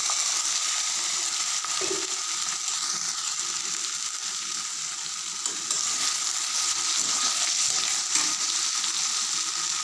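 Diced potatoes frying in hot oil in a metal karahi (wok): a steady sizzle as they are stirred and turned with a spatula.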